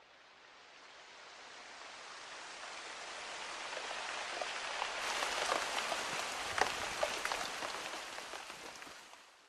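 Rain falling, the hiss swelling steadily to its loudest about six seconds in with sharp drop splashes, then fading out.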